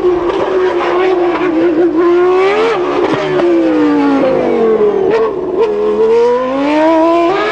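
Williams FW19's 3.0-litre Renault V10 Formula 1 engine at high revs, its pitch climbing and snapping down through gear changes. It revs up and drops sharply about two and a half seconds in, falls away through several downshifts, then climbs again near the end.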